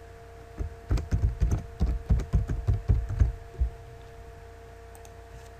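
Typing on a computer keyboard: a quick run of dull, knocking keystrokes for about three seconds, stopping a little past the middle.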